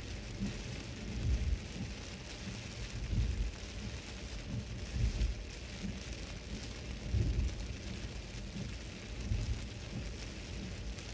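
Heavy rain hitting a car's windshield and body, heard from inside the cabin while driving on a wet road, with tyre and spray hiss. A low rumbling thump comes about every two seconds.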